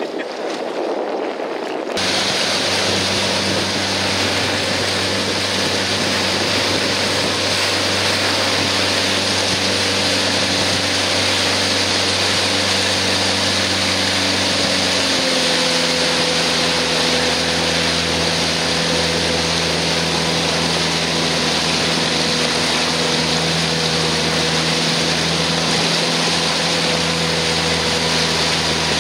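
Motorboat engine running steadily under a rush of water and wind noise. It comes in loudly about two seconds in, and its note drops slightly about halfway through.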